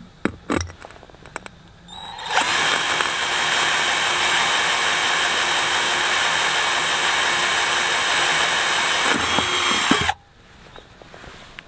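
A few light clicks, then a cordless drill starts about two seconds in and runs steadily for about eight seconds, its bit grinding through a ceramic wall tile, before it cuts off suddenly.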